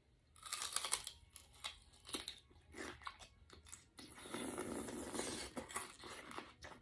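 Close-up eating sounds of chicken wings in sauce: irregular wet clicks and crunches, with a denser stretch of crackling about four seconds in.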